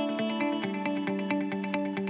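Background music: a melody of short, evenly paced notes over a steady pulse.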